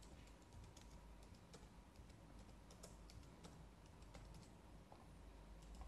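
Faint typing on a computer keyboard: a run of irregular, quick key clicks.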